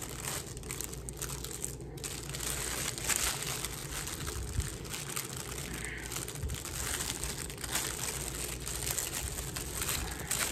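Plastic packaging crinkling and rustling as it is handled, a steady run of small crackles.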